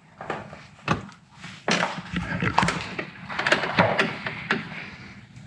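Handling noises as an LED headlight bulb is picked up and readied for fitting: a run of sharp clicks and short rustles of plastic parts, busiest in the middle.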